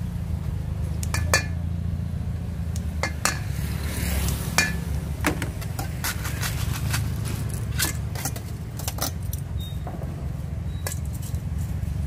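Spoon clinking and scraping in a stainless steel mixing bowl, with the clatter of cockle shells, in quick irregular knocks as a Thai salad is mixed by hand. A steady low hum runs underneath.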